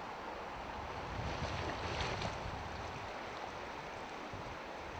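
Shallow river running over stones, a steady rush of water. A louder stretch of low rumble with a few sharp crackles comes about one to two seconds in.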